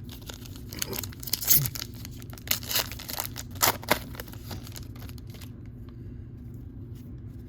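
A trading-card pack wrapper being torn open and crinkled by hand, a run of sharp crackles over the first four seconds or so that then dies away.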